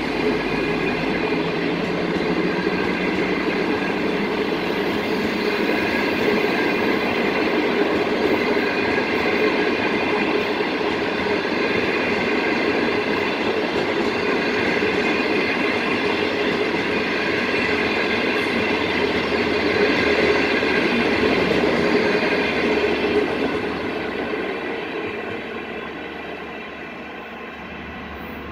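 Passenger train coaches rolling past at speed: a steady rumble and rattle of wheels on rail, fading away over the last few seconds as the train draws off.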